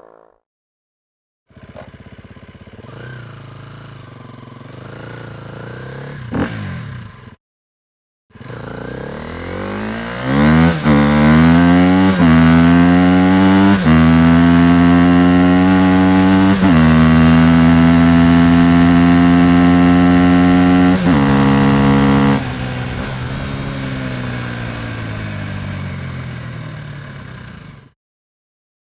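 A motor vehicle engine: first running steadily for about six seconds, then after a short break revving up hard, its pitch climbing with sudden dips like gear changes, holding high, and falling away near the end.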